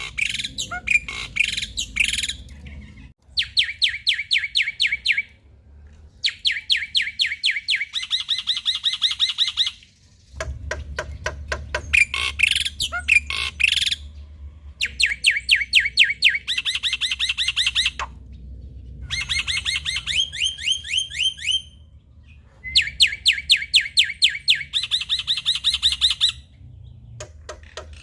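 Male black-winged myna (jalak putih) singing: phrases of rapid, evenly repeated trilling notes, each lasting a couple of seconds, alternating with harsher chattering notes.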